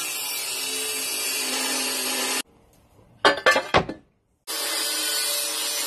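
Angle grinder with a cutting disc slicing through 6 mm steel plate, a steady high grinding that cuts off about two and a half seconds in. After a short cluster of knocks the grinding starts again at about four and a half seconds.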